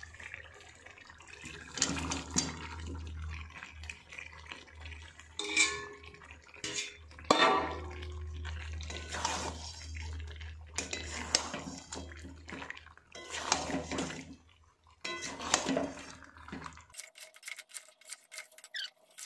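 Metal spatula scraping and knocking against an aluminium kadai as meat curry and potato pieces are stirred and turned, in irregular bursts. About two seconds before the end the stirring stops abruptly and a faint steady tone with light clicks remains.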